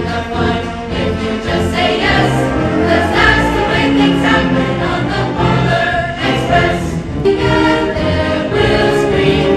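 A high school choir singing, many voices together in a sustained piece.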